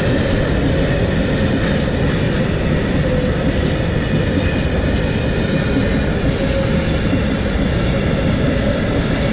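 Freight train wagons rolling past at speed: a steady, loud rumble of wheels on the rails that does not let up.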